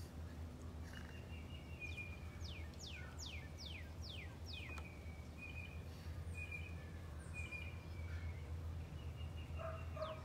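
Bird calls: a run of quick chirps that each slide downward in pitch, followed by short level chirps, over a steady low hum.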